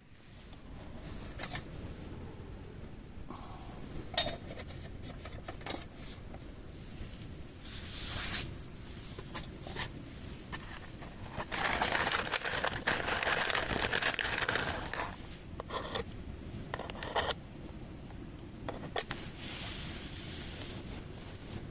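Scattered clinks and knocks of small hard objects being handled, with a longer burst of rustling about halfway through, over a steady low rumble.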